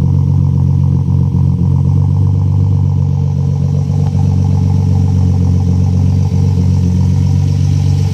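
Nissan RB25DE straight-six engine running steadily, with lifter noise: a clattering tick from the valve lifters.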